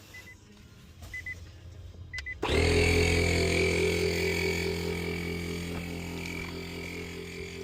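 Electric air pump for an inflatable paddle board: a few short beeps from its controls, then about two and a half seconds in the motor starts abruptly and runs steadily, pumping air into the board.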